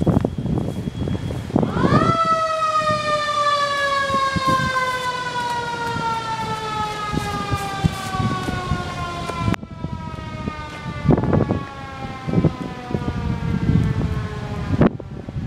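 Fire truck siren winding up quickly about two seconds in, then slowly coasting down in pitch for over ten seconds, with wind buffeting the microphone throughout.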